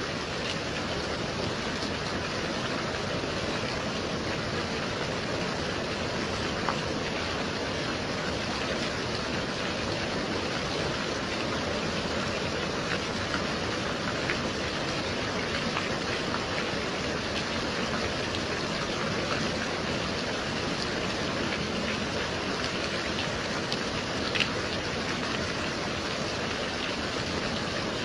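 Gentle rain falling steadily, an even hiss with a few sharper drop ticks here and there.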